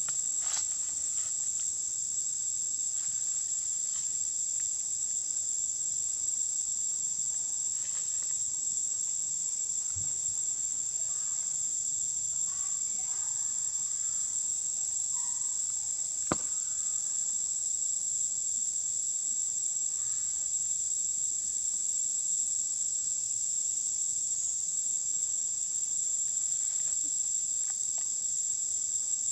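Forest insects keep up a steady, high-pitched drone. A few faint knocks come through, with one sharper click about halfway.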